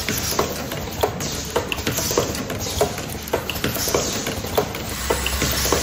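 Automatic zipper slider-mounting and cutting machine running: its pneumatic grippers and cutter clicking and clacking, about two or three times a second at uneven intervals, over a steady hiss. A low hum comes in near the end.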